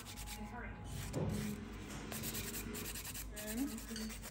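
Hand nail file rasping over an artificial fingernail in quick back-and-forth strokes.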